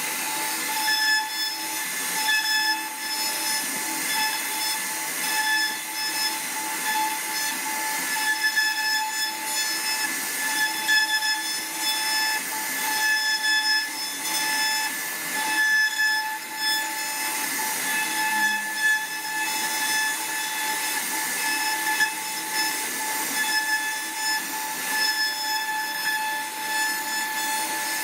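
CNC wood router carving wood: the spindle's steady high whine over the uneven rasping noise of the bit cutting, rising and falling slightly as it works.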